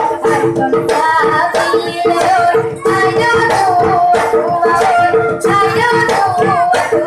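Traditional Tiwa folk song: a singing voice carrying a wavering melody over a steady drumbeat and a repeating instrumental figure.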